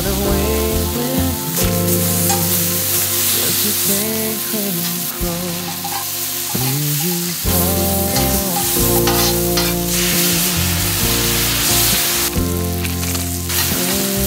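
Steak, lobster tail and noodles sizzling on a hot griddle plate, with a steady frying hiss and a few sharp clicks of metal tongs on the plate. Background music plays underneath.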